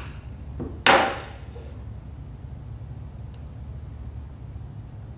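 Wooden mallet striking a letter stamp held against a man's forehead: a softer tap, then one hard blow about a second in with a short ringing tail. A faint click follows near the middle.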